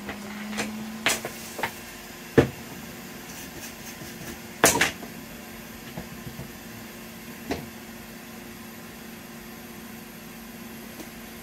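Scattered light clicks and knocks of tools and a laptop motherboard being handled on a repair bench, the sharpest about two and a half and five seconds in, over a faint steady hum.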